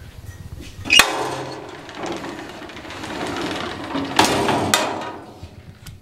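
Steel mesh gate of a Cram-A-Lot vertical baler being handled: a sharp metal bang about a second in, a stretch of rattling, then two more bangs a little after four seconds in.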